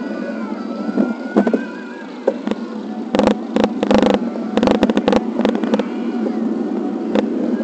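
Road noise from a bike-mounted action camera riding over rough, wet pavement: a steady rumble broken by clusters of sharp knocks and rattles, thickest about three to five seconds in. A faint thin wavering tone sounds during the first two seconds.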